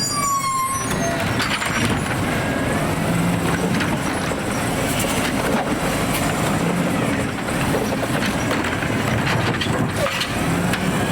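AutoReach automated side-loader garbage truck running, with a steady mechanical noise and a brief squeal at the very start. Wind buffets the microphone throughout.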